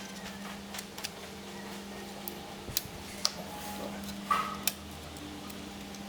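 Scattered light clicks and taps of plastic laptop parts and small tools being handled, over a steady low hum.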